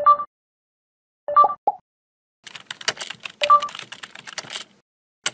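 Intro animation sound effects: two short electronic blips, then about two seconds of rapid computer-keyboard typing clicks, and a single sharp click at the end.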